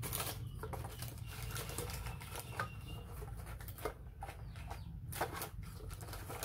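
Rustling and light clicking of hands and a baby macaque rummaging through items in a wicker basket, a run of short irregular ticks and crinkles, over a steady low hum.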